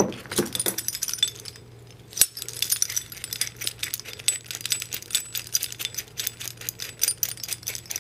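Steel gear puller parts, its forged jaws, bolts and yoke, clinking and rattling against each other as they are handled and fitted together. There is a sharp knock at the very start, then a quick run of many light metal clinks from about two seconds in.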